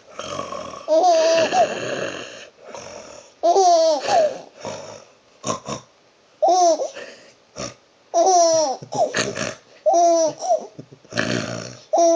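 A young child laughing in repeated high-pitched bursts about every second or two, with breathy, noisy sounds in between.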